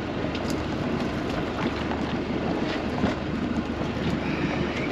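Steady wind and sea noise aboard a small open fishing boat, with a few light knocks.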